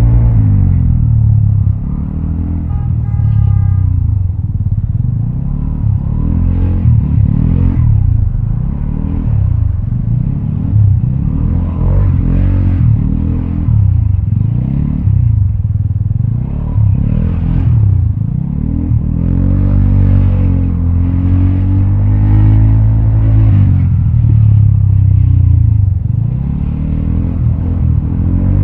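Vespa automatic scooter's single-cylinder engine running through a Prospeed Black CNC aftermarket exhaust, revving up and easing off again and again as the rider works the throttle. A short horn sounds about three seconds in.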